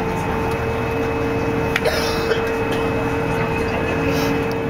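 SeaBus passenger ferry's engines running underway: a steady drone with a constant hum and a high whine on top.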